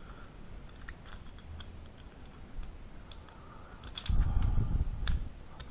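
Small metal parts of a SAAB 9-5 ignition lock cylinder being fitted together by hand: light, scattered clicks and scrapes, with a dull low bump of handling about four seconds in.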